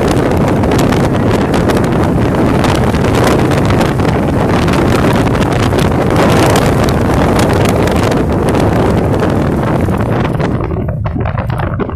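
Storm-force wind buffeting a phone microphone: a loud, continuous rumbling roar that eases slightly near the end.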